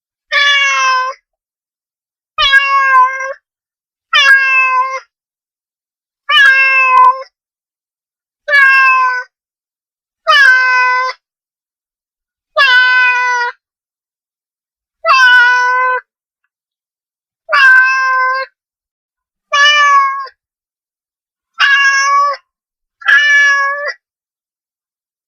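A domestic cat meowing over and over, twelve separate meows about two seconds apart. Each is a short, high, clear call under a second long, with dead silence between them.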